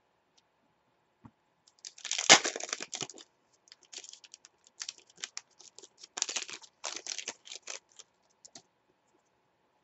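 Foil wrapper of a trading-card pack being torn open by hand, a burst of crackling about two seconds in. Scattered crinkles and clicks follow as the wrapper is worked off the cards, stopping about two-thirds of a second after the eight-second mark.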